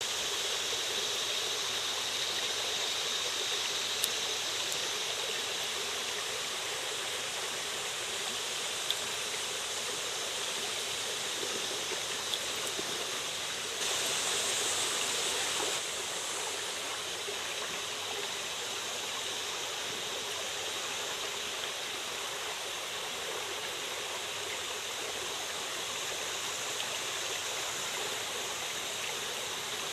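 Shallow creek water running over and around a rock, a steady rushing. It gets briefly louder and brighter for about two seconds near the middle.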